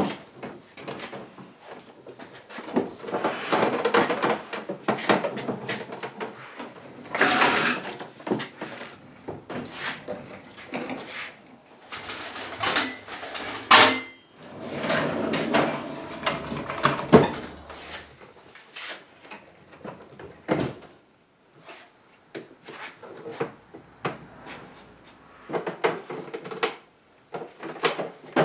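Quarter-sawn oak drop-leaf table being manhandled and turned over: irregular wooden bumps, knocks and scraping against the bench and dolly, with two sharp knocks about halfway through.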